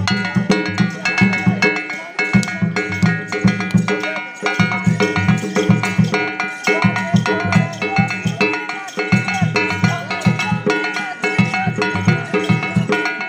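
Live Danda Nacha dance accompaniment: drums beaten in a fast, steady rhythm, with ringing metal percussion, gong or cymbals, clanging over them.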